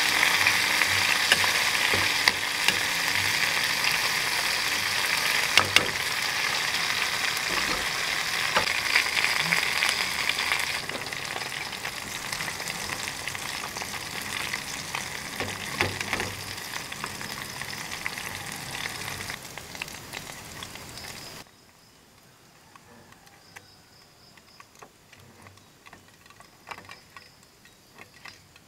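Battered food pieces deep-frying in hot oil in a small pot, with a loud, steady sizzle and the odd clink of tongs or a spoon against the pot. The sizzle eases off partway through and stops abruptly about twenty seconds in, leaving only faint ticks and clicks.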